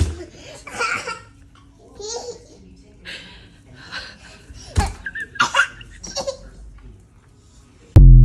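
People laughing hard in repeated short bursts, with a sudden loud thump near the end.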